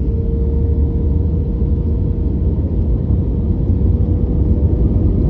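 Steady airplane engine noise in flight: a deep, even rumble with a constant hum above it.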